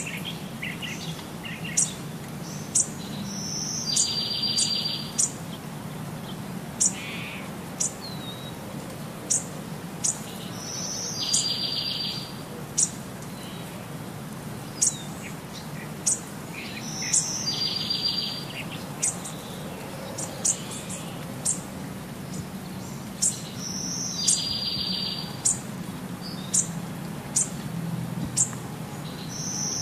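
Birds chirping and singing: many short, sharp high chirps, with a trilled phrase that comes back about every six to seven seconds, over a low steady hum.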